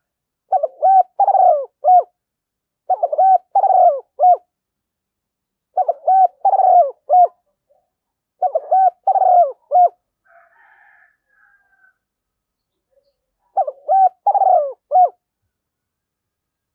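Spotted dove cooing: five phrases of several deep, rolling coo notes each, two to three seconds apart, with a longer pause before the last. This is the dove's calling song, of the kind played as a lure to draw other doves.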